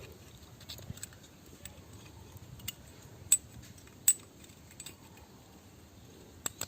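Small metal parts of a camping stove clicking and clinking as they are handled and fitted by hand. There are scattered light ticks and two sharper clicks a little past halfway.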